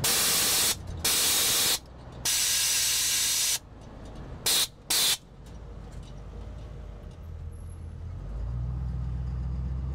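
Air hissing out of a 1989 Chevy Suburban's air bag suspension as the bags are let down to the soft setting: three long loud blasts of about a second each, then two short ones. The truck's engine rumble then rises toward the end.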